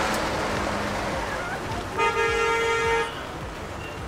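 A vehicle horn gives one steady toot lasting about a second, starting about two seconds in. Before it comes the rushing engine and tyre noise of a passing van, which fades away.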